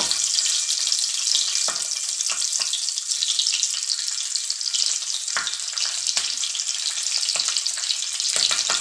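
Hot oil sizzling on a flat tawa as stuffed green chillies are laid in one by one to shallow-fry, with a few sharp pops through the steady hiss.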